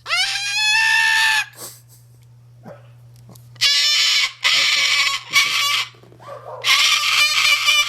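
Moluccan cockatoo screaming loudly: one long call that rises and then holds. After a pause of about two seconds comes a run of four harsh screeches.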